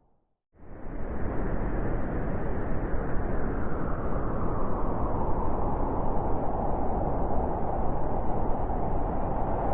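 Blizzard wind: a steady rushing noise that drops out to silence for a moment at the start and swells straight back, with a howling tone growing stronger toward the end.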